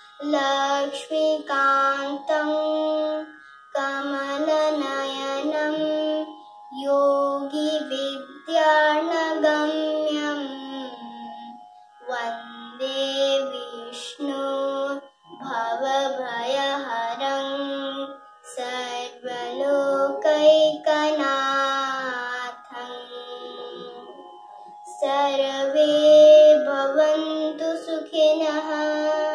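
A young girl chanting a Sanskrit shloka to a sung melody, in phrases of a few seconds each with short pauses for breath between them.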